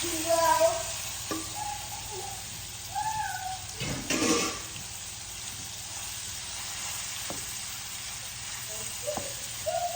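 Cubed chicken breast frying in a pan with a steady sizzle while being stirred, with a louder scrape or clatter about four seconds in.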